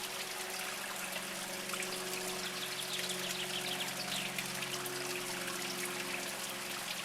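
A small mountain spring trickling steadily over mossy rocks, with many fine droplet plinks over the flow and a low steady burble.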